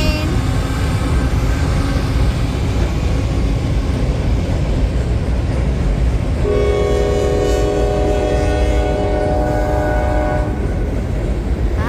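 Train passing with a steady low rumble. About halfway through, its horn blows one long blast lasting about four seconds.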